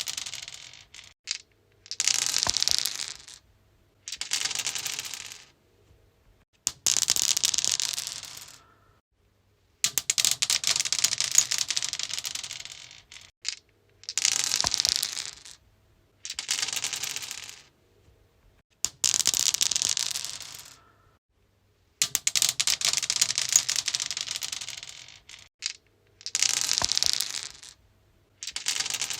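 Dice rolled again and again on a stone surface: each roll is a burst of quick clattering clicks that dies away over a second or two, followed by a short pause before the next.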